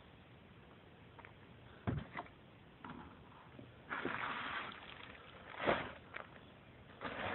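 Sheets of drawing paper being handled and shuffled: a few short rustles and taps, with a longer rustle about four seconds in.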